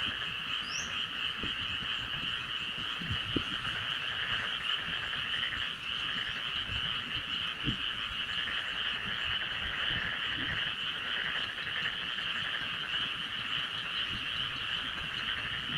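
Frog chorus: many frogs calling at once in an unbroken, steady high-pitched trill.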